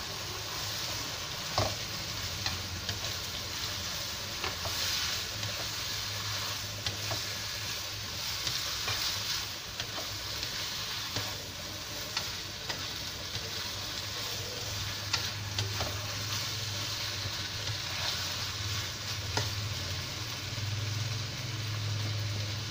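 Yellow noodles and prawns sizzling in a wok as they are stir-fried: a steady sizzle, with the spatula scraping and tapping the pan now and then, over a low hum.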